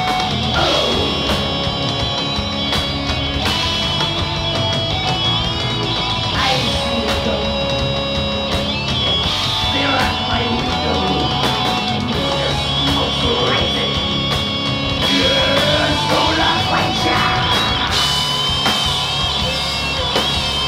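Live rock band playing a heavy, distorted song: electric guitars over bass and drums.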